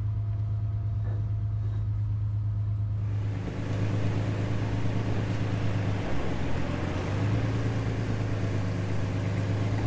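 Fishing boat's engine running at a steady idle, a low even hum whose note wavers briefly a little past the middle. A steady hiss joins about three seconds in.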